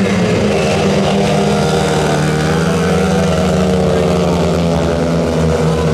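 Speedway motorcycles racing around the track, their single-cylinder engines running loud and steady.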